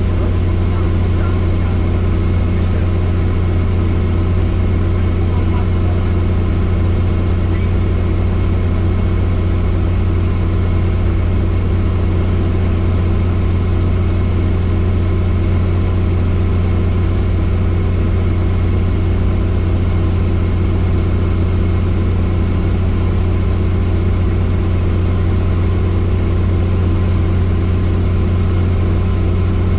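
Helicopter's rotor and turbine engine running with a loud, steady drone, strongest in a deep low hum, with steady higher tones above it.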